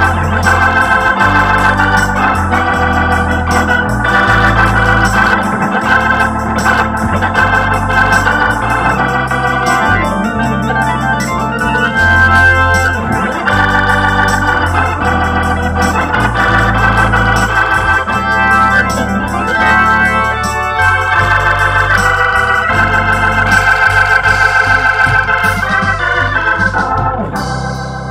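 Hammond T500 organ played as a slow ballad: held chords on both manuals over bass notes that change every second or two.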